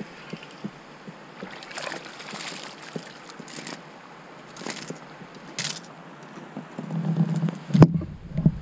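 River water lapping around a fishing kayak, with a few short splashes as a small hooked fish is brought up to the boat. Near the end comes a sharp knock, the loudest sound, among low rumbling handling noise.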